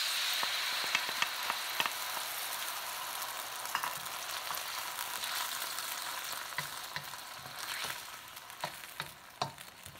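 Onion and peppers stir-frying in hot chili-infused oil: a steady sizzle with a utensil clicking against the pan now and then. The sizzle eases off over the last couple of seconds while the clicks come more often.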